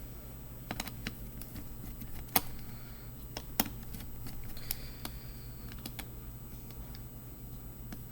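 Scattered light clicks and ticks of a small screwdriver working tiny screws out of a laptop's plastic chassis.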